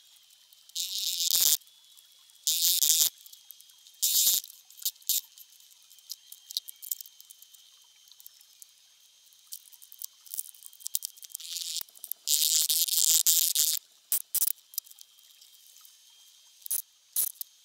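Petrobond oil-bonded sand being crumbled and rubbed by gloved hands in a wooden moulding flask: short bursts of gritty hiss, the longest near the end, with a few light knocks and clicks in between.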